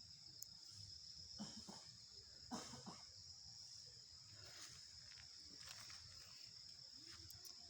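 Faint, steady high-pitched chirring of crickets at night, with a few soft footsteps on the ground.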